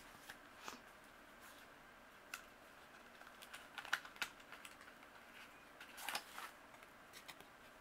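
Faint, scattered light clicks and brief rustles of a small mailer package and its paper contents being opened and handled by hand.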